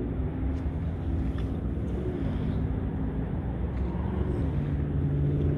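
An engine running: a steady low hum with a few pitched tones in it, stepping slightly lower about two seconds in and again near the end, growing a little louder.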